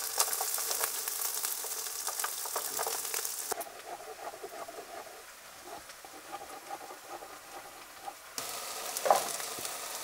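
Crumbled tempeh frying in oil in a pan, a sizzling hiss with crackles as it is stirred. The sizzle drops away for a few seconds in the middle, leaving a quieter stretch with a few light knife taps on a wooden cutting board. It comes back near the end with a sharp knock.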